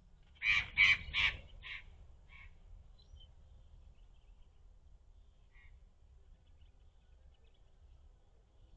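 Magpie giving harsh, rasping squawks: three loud ones in quick succession, then two fainter ones, and one faint call a few seconds later.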